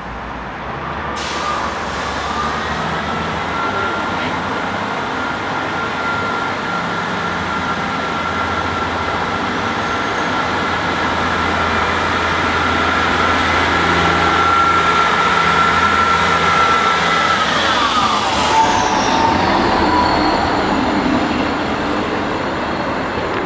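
Class 158 diesel multiple unit pulling out and running past, its diesel engines and transmission giving a steady whine over a low drone, growing louder. Near the end the whine slides down in pitch as the train goes by.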